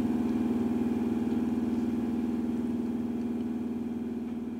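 Fire engine's engine running steadily, a low even hum with a fast pulse, fading out slowly.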